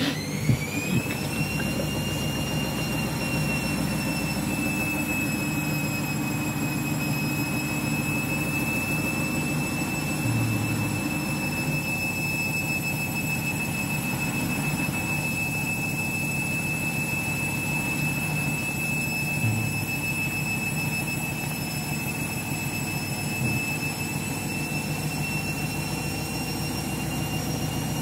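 Front-loading washing machine's drum motor whining as it speeds up over the first couple of seconds and then holding a steady pitch while the overloaded drum turns with water still in it, over a low steady hum.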